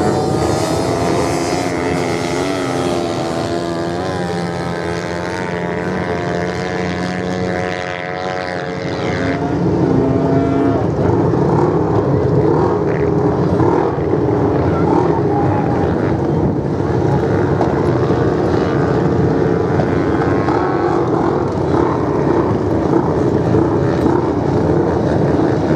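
Off-road motorcycle engines racing on the sand, the pitch rising and falling as the riders accelerate and ease off through the turns. The sound dips briefly, then gets louder again from about ten seconds in.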